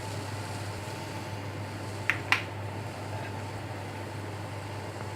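Steady mechanical hum, with two quick light clicks about two seconds in.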